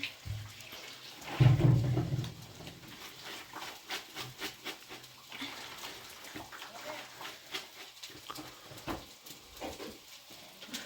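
Scattered light clicks and knocks of kitchen work with dishes and utensils, after a short pitched voice-like sound about a second and a half in.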